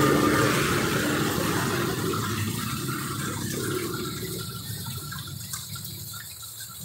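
Rain falling steadily on a wet street, an even hiss, with a car driving past on the wet road at the start, its sound fading away over the first couple of seconds.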